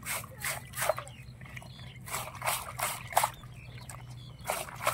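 Water sloshing, splashing and dripping as a young macaque moves a wet cloth about in a plastic bucket of water, in short irregular splashes several times a second.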